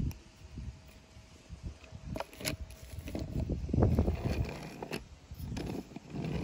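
A Hot Wheels Monster Trucks toy truck (Will Trash It All) being handled and set rolling on a wooden track. A low, uneven rumble from the big rubber wheels and the boards swells about four seconds in, with a few sharp clicks of the toy's body and chassis.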